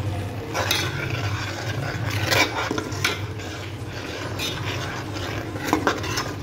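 A steel ladle stirring and scraping a thick masala paste as it fries in oil in a steel pot, with several short scrapes against the pot, the strongest about two and three seconds in, over a steady low hum.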